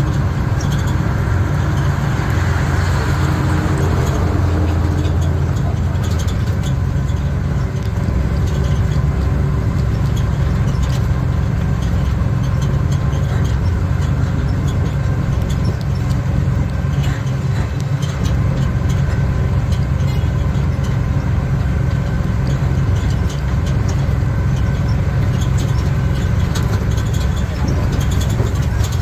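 Steady low rumble of a motor vehicle's engine and road noise, heard while riding in it.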